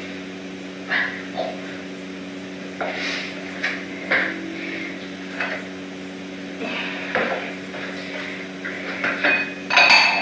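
Scattered light clinks and knocks of pet food bowls being handled and set down on a hard floor, with the loudest clatter near the end, over a steady low hum.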